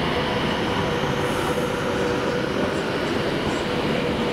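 A train moving along the track, a steady rumble with a faint steady whine over it.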